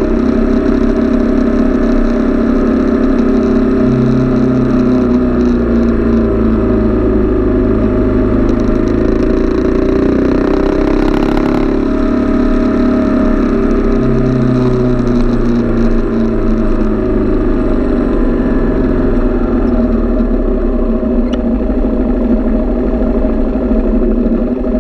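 Sport motorcycle's engine running steadily under way, its note dipping and then climbing again around the middle.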